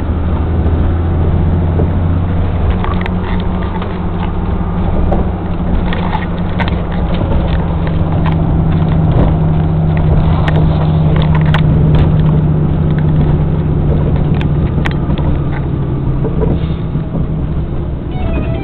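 Mercedes-Benz Axor truck's diesel engine running with a steady low drone, its note shifting about four seconds in, with scattered clicks and rattles over it.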